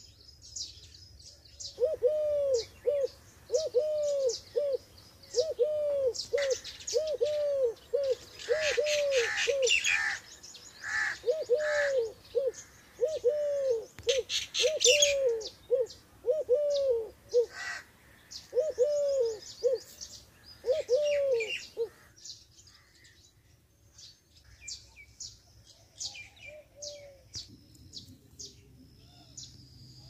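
Birds calling: one bird repeats a low, cooing call in a long series of arched notes while smaller birds chirp at a higher pitch. The cooing stops about two-thirds of the way through, leaving scattered high chirps.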